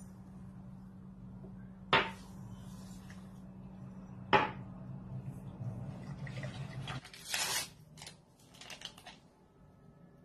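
Stainless-steel wire whisk stirring a milk mixture in a pot, with two sharp clinks of metal against the pot and lighter scraping and ticking, over a low hum that stops about two-thirds of the way through.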